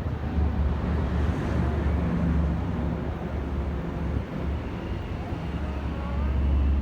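2016 Suzuki GSX-R1000's inline-four engine running steadily at low revs, with some wind on the microphone.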